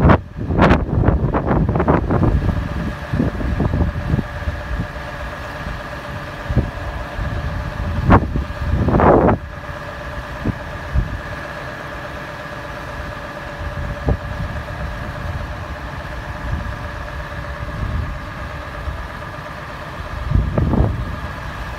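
Scania lorry's engine running steadily to power its Fassi loader crane, with a steady whine over it. Wind buffets the microphone in the first couple of seconds and again about eight to nine seconds in.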